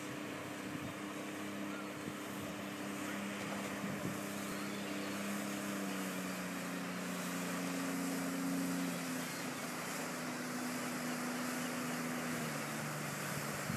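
A boat engine running steadily, its hum slowly dropping in pitch, over a constant wash of wind and water noise.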